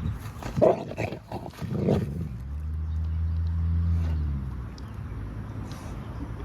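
A large canine growling over a toy: a few short, sharp vocal sounds in the first two seconds, then one long, low growl held for about two seconds.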